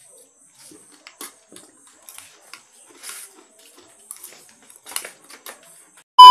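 Spoons and forks clicking and scraping on plates in short, scattered taps during a meal. Right at the end, a very loud steady test-tone beep cuts in suddenly: a colour-bars edit effect.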